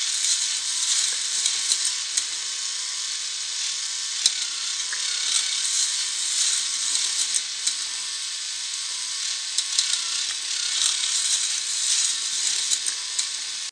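K'nex plastic ride mechanism running: a steady high whirring hiss of plastic gears and rods turning, with scattered sharp clicks and rattles.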